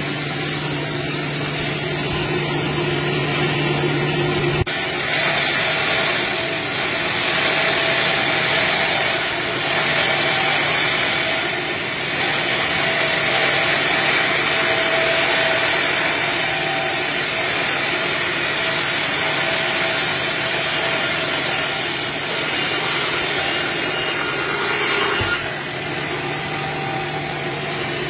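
Portable band sawmill running, its band blade sawing lengthwise through a log with a loud, steady noise. A low hum underneath stops with a click about four and a half seconds in and comes back near the end.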